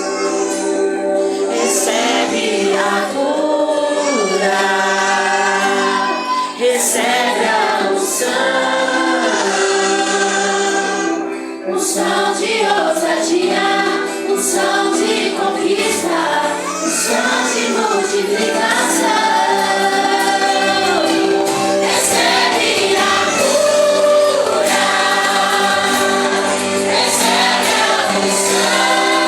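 A gospel worship song sung by several voices together over a band, with sustained keyboard chords underneath and percussion hits throughout.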